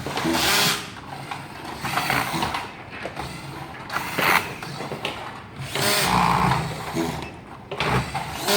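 Irregular clicking and rattling of hand tools and plastic LED lamp parts during manual repair work.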